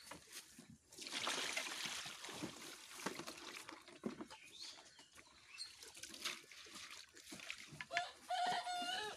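A rooster crows once near the end, a single call about a second long. Before it, rustling and scattered knocks as feed is handled at the bucket and trough.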